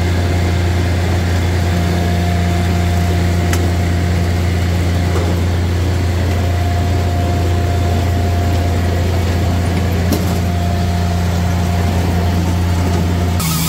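Japa 405 firewood processor running steadily at idle, a constant low hum with a couple of light knocks. Near the end the sound changes abruptly as the machine's load shifts.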